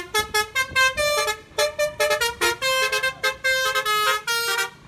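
Vehicle horns honking in quick succession, several short honks a second at changing pitches, run together like a tune.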